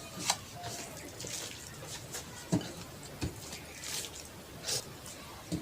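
Close-up wet chewing and lip smacking of a person eating curry and rice, in irregular moist clicks and smacks.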